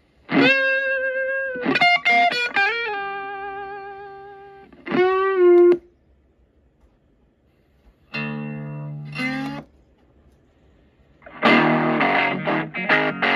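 Guitar music from a CD playing through the built-in speakers of a Victrola 1950s-style record player/CD stereo. It comes in short snatches broken by silent gaps as the tracks are skipped, then plays on steadily for the last two seconds.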